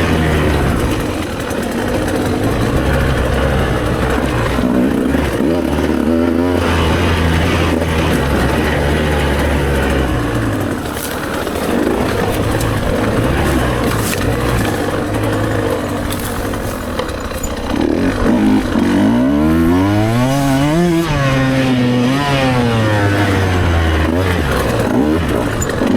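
Enduro motorcycle engine running under changing throttle, its pitch shifting. About two-thirds of the way through it revs up in a long rise, then falls back.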